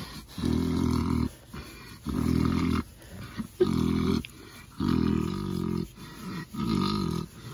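Pet pig giving low, drawn-out grunts, five in a row about a second apart: the contented sounds of a pig being scratched toward sleep.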